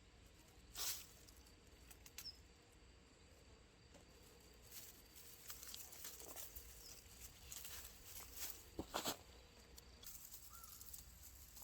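Faint scattered rustles and light taps over a quiet background, with a couple of louder clicks about a second in and near the end.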